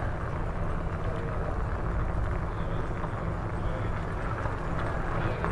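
Steady low rumble of riding a bicycle through city streets: tyre and wind noise on a bike-mounted camera's microphone, with faint street sounds mixed in.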